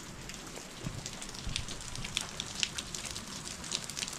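Rain pattering steadily, with many separate drops ticking.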